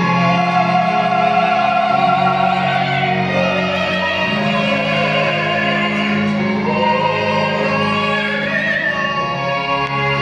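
Classical music: an operatic voice singing long held notes over an orchestra.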